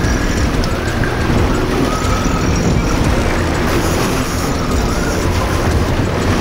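Steady wind rushing over the microphone, mixed with the running engine of a trolling boat at sea.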